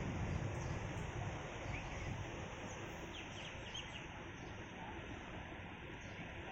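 Steady outdoor background noise, heaviest in the low end, with a few faint, short bird chirps.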